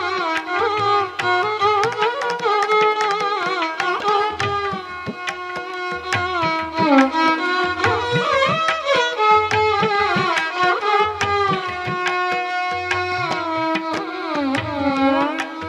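Indian classical instrumental music: a gliding, ornamented melody over a steady drone, with drum strokes in the bass.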